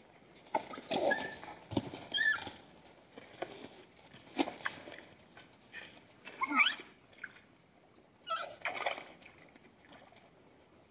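Hartmann's mountain zebras moving at a waterhole's edge: irregular knocks and scuffs of hooves on stones, with splashing in the shallow water. A few short, high, gliding squeaky calls come in among them, about a second in, at two seconds, at six and a half seconds and at eight seconds.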